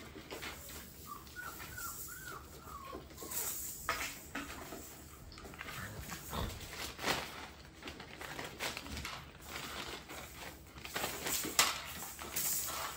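A litter of bullmastiff puppies playing: paws scrabbling and toys knocking on a hard floor, with a brief high, wavering whine about a second in.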